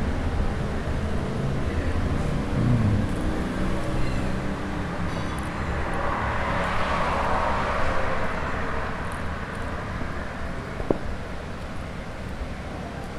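Road traffic noise: a steady rumble of passing vehicles, with one vehicle passing more loudly about seven seconds in and fading away.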